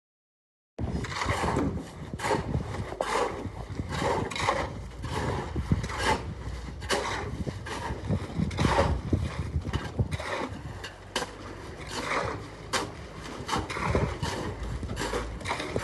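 Building-site work: irregular knocks, clanks and scrapes of hand tools, a few every second, over a steady background noise.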